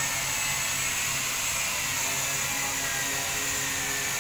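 Steady machine whir with a thin high whine that drifts slightly in pitch over a low hum: machinery running in a car-body workshop.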